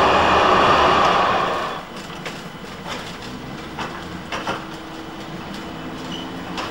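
Loud steady rushing street noise that cuts off about two seconds in. A quieter scene follows at a standing low-floor tram with its door open: a faint steady hum, with scattered clicks and knocks as a shopping trolley and a pushchair are wheeled aboard.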